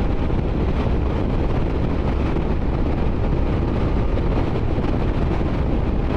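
Wind rushing over a helmet microphone on a motorcycle moving at road speed, mixed with the engine and tyre noise: a steady, low rumble with no let-up.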